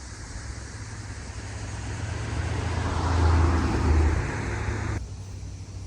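A road vehicle going past, its noise swelling to a peak about three seconds in and then cutting off sharply near the end, over a steady low rumble.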